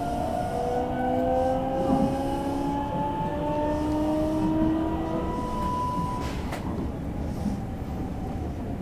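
JR West 225 series electric train accelerating, heard from inside the car: the traction motors and inverter whine in several tones that rise steadily in pitch, then the whine stops about six seconds in, leaving the running rumble of the wheels on the rails. A single sharp click follows soon after.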